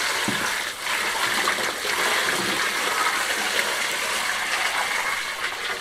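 Water poured from a plastic bucket onto a load of stones in a metal wheelbarrow, gushing and splashing steadily as the stones are rinsed clean of dirt.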